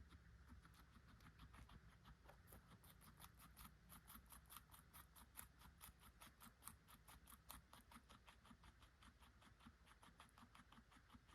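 Guinea pig chewing carrot: a quiet, rapid and even crunching, several chews a second, crispest through the middle.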